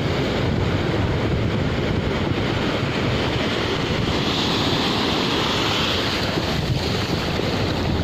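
Shallow sea surf washing up and draining back over sand, with wind buffeting the microphone in a steady low rumble. About halfway through, the hiss of the foaming water grows louder for a couple of seconds.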